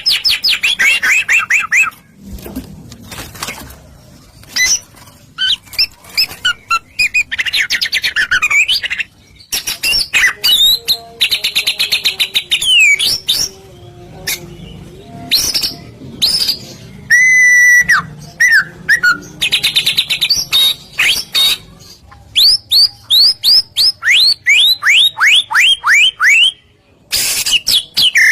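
Recorded songbird song used as a lure: fast buzzy trills, sweeping whistles and chirps, with a run of quick downward-slurred notes about three quarters of the way through. The recording is spliced, with abrupt cuts between phrases.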